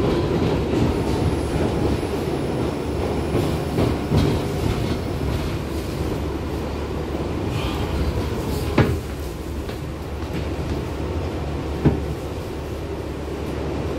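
R62 subway car running through the tunnel and slowing into a station, heard from inside the car: a steady rumble of wheels on the rails that gradually gets quieter, with two sharp knocks about three seconds apart near the end.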